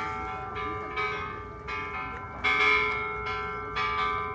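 A bell struck repeatedly, about seven times at uneven intervals. Each strike rings on with the same bright tones, so the rings overlap.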